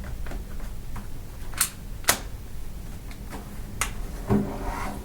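Lenovo X120e laptop battery being fitted into its bay, with three sharp plastic clicks as it seats and latches, the loudest about two seconds in.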